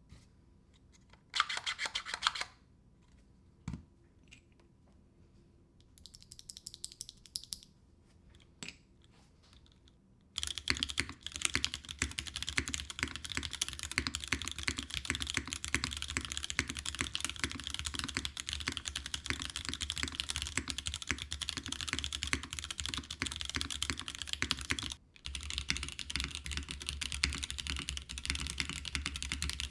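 Mechanical keyboard with TTC PT Black linear switches and ABS keycaps: a few scattered key presses and a short high-pitched rustle in the first ten seconds, then continuous fast typing from about ten seconds in, broken by a brief pause near 25 seconds.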